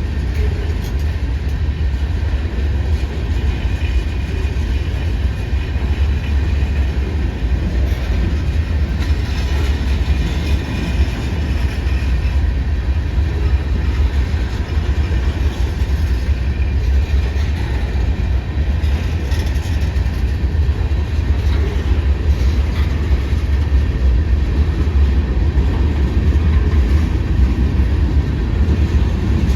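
Freight cars of a long manifest train rolling past on the rails, a loud, steady, heavy rumble.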